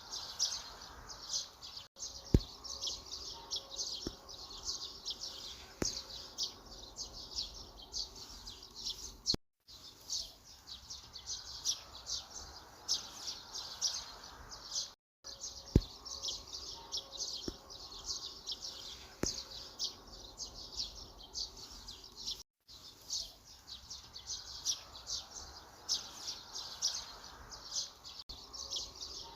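Birds chirping and singing: a dense run of rapid, high, short calls. The sound cuts out briefly three times.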